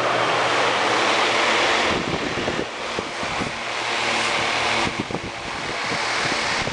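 Solar-powered 10-watt DC table fan running, its airflow rushing over the microphone with a steady low motor hum underneath. About two seconds in, the rush turns uneven and gusty, with buffeting thumps on the microphone.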